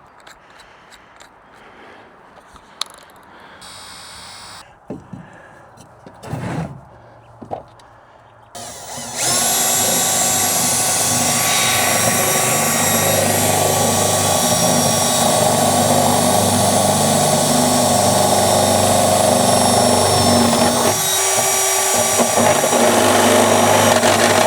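Power drill with a step drill bit running steadily, cutting a hole through the truck bed for the fuel cell's hose. It starts about nine seconds in, after a stretch of light clicks and knocks from handling.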